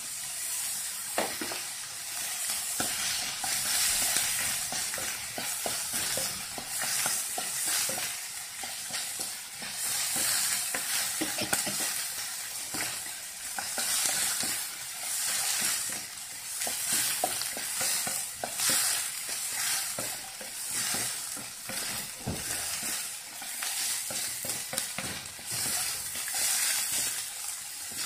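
Chopped onion, ginger and green chilli sizzling in hot oil in a frying pan while a spatula stirs them, clicking and scraping against the pan. The sizzle swells and fades over and over with the stirring strokes as the onion sautés toward translucent.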